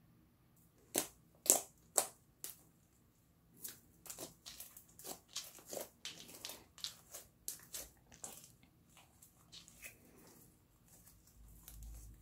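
Hands squeezing and folding thick slime. Four sharp pops of trapped air come about a second in, half a second apart, then a run of smaller wet clicks and crackles that thin out toward the end.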